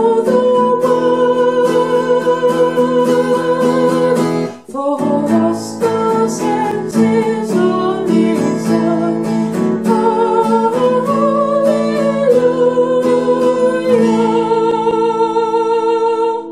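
A woman singing a Christmas hymn, accompanying herself on a strummed acoustic guitar, with a brief breath-pause about four and a half seconds in. The verse ends on a long held note near the end.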